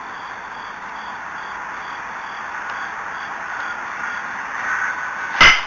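A single sharp crack about five seconds in as the full-count pitch reaches home plate, a baseball striking at the plate, over a steady outdoor hiss.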